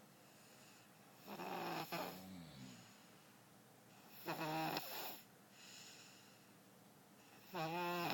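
Baby snoring: three snores about three seconds apart, each a short, rattly, pitched breath.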